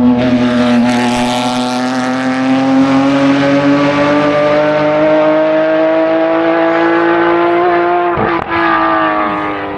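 Race car engine at high revs, its note climbing slowly and steadily for about eight seconds. There is a short break about eight seconds in, and then the engine fades away.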